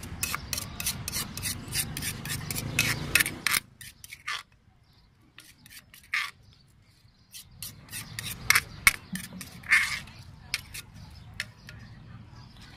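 Metal spoon scraping and knocking around the inside of an earthenware papaya-salad mortar as the salad is scooped out. It goes in quick, rapid strokes for the first three and a half seconds, falls quiet for a few seconds, then comes back as scattered scrapes and taps.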